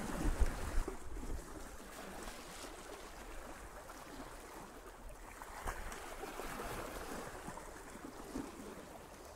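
Faint, steady wash of calm sea water lapping at the shoreline, with a couple of soft low bumps in the first second.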